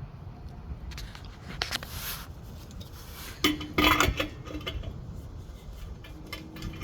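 Metal tool clinks and scrapes against a truck's air-tank line fitting as it is turned into place, with the loudest clatter about three and a half seconds in.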